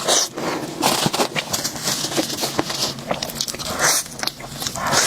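Someone biting and chewing a crispy fried chicken cutlet coated in sauce: repeated crunchy chewing bursts about once or twice a second.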